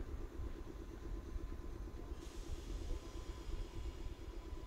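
Meitetsu 6000 series electric train pulling slowly into the station: a steady low rumble of wheels and running gear, with a hiss that comes in about two seconds in.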